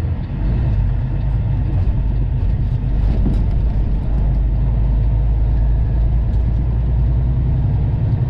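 Semi-truck's diesel engine running with a steady low drone while the truck is driven.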